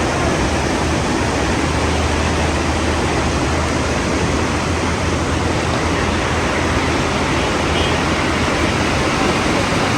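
Heavy rain pouring down in a loud, steady hiss, with a low vehicle rumble underneath.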